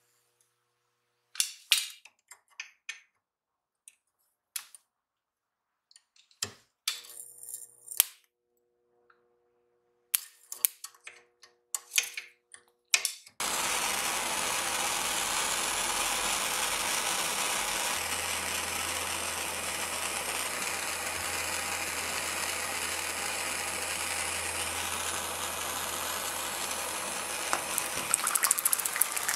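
A few scattered metal clicks and taps, then from about halfway a sudden steady loud hiss of a small pencil torch flame heating a nut. Near the end the hiss turns to crackling as the hot nut sets a bottle cap of liquid burning.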